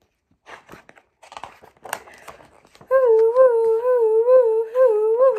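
Book pages turning with faint rustles and taps. About three seconds in, a woman's voice imitates a howling wind with a long, wavering "hoooo woooo", its pitch rising and falling about three times a second.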